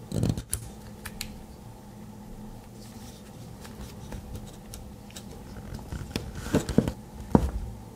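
Light clicks and handling noises from a Victorinox Swiss Army Knife being worked in the hands, with a few sharper clicks near the end.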